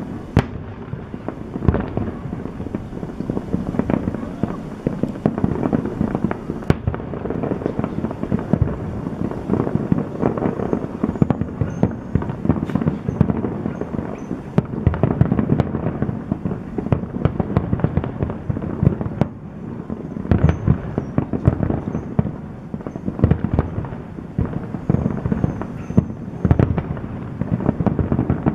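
Aerial fireworks display: a dense, continuous barrage of bursts and crackling, with single sharper bangs standing out every few seconds.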